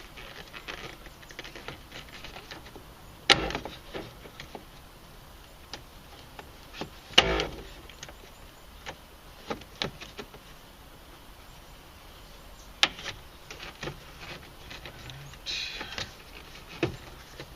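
Scattered clicks and knocks of the plastic interior door handle being fitted and clipped into place in the door, with three sharper knocks about 3, 7 and 13 seconds in.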